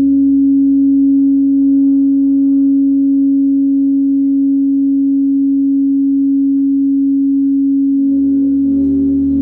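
Loud amplified drone from an improvised electric set: a single steady tone held unchanged over a low hum. Other, quieter sustained notes join in again about eight seconds in.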